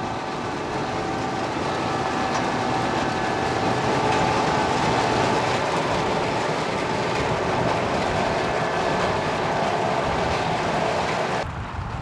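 Riecam RBM 230 self-propelled sugar beet harvester at work, its 9.5-litre air-cooled six-cylinder Deutz engine and harvesting machinery running loud and steady with a whine. The sound drops suddenly near the end.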